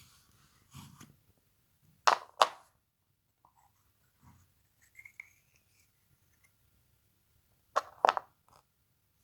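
Slime being handled by hand, giving two pairs of sharp pops, one about two seconds in and one near the end, with a few faint clicks between.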